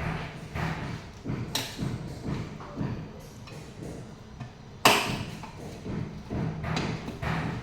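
Irregular knocks and thuds, with one sharp, loud knock about five seconds in.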